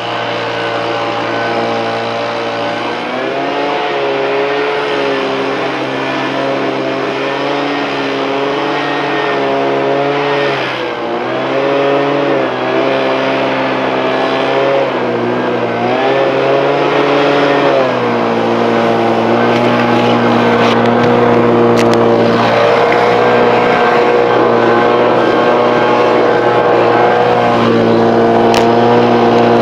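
Two-stroke handheld leaf blower running at high throttle, its engine pitch dipping and recovering several times as the throttle is eased and reopened, then holding steadier and a little louder for the second half.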